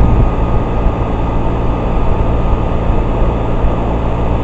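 Carrier 38BRC central air conditioner's outdoor condensing unit running: a steady low hum from the compressor under the rushing noise of the condenser fan.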